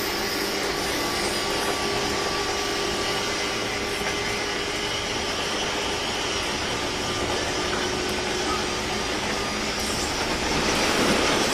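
Running noise inside a JR 201 series electric train's motor car: wheels rolling on the rails under a steady motor and gear whine, holding several fixed pitches. A louder rushing swell comes up about ten seconds in.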